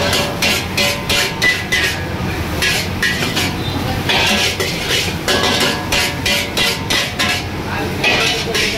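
A metal spatula scraping and clanking against a large wok while fried rice is stir-fried and tossed, in quick rhythmic strokes of about four a second.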